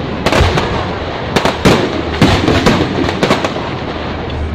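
Aerial fireworks shells bursting overhead: a rapid series of bangs, sometimes two or three close together, over a continuous crackle of burning stars.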